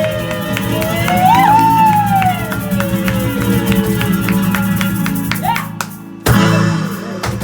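A band playing live, with a guitar holding one long sustained note that slides and bends in pitch over a steady low backing and regular short plucks; a brief break about six seconds in, then a final chord struck.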